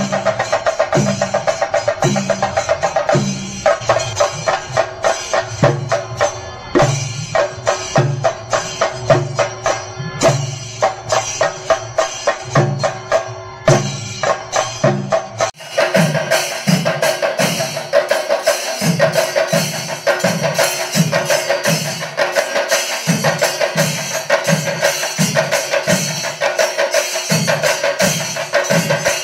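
Music driven by drums beating a steady rhythm under a held, higher melodic tone. About halfway through it changes abruptly to a brighter section with crisper, evenly spaced beats.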